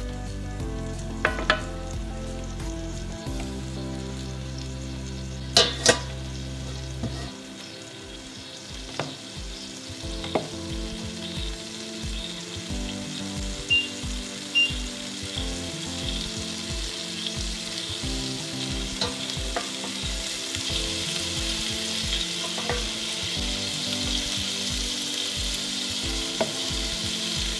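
Steady sizzling from cooking on the stove, growing a little louder toward the end, with a few sharp knocks in the first six seconds. Background music with a steady beat plays underneath.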